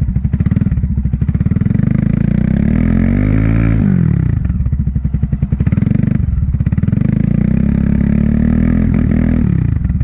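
Vort-X 300R motorcycle engine revved twice from a pulsing idle. The revs climb for about three seconds and fall back about four seconds in, then climb again and drop back to idle near the end.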